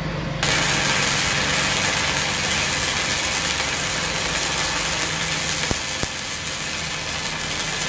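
Gasless flux-cored MIG welding arc from an ESAB HandyArc Mig 200i set for 6 mm plate. The arc strikes about half a second in and runs as a steady hiss for the rest of the bead, with two faint clicks a little past the middle.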